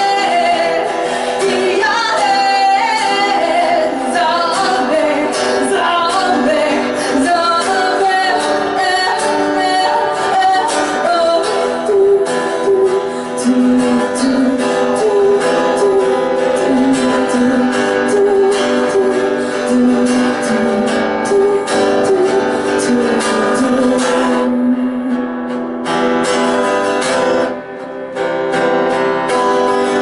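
A woman singing while playing an acoustic guitar, a live song performance.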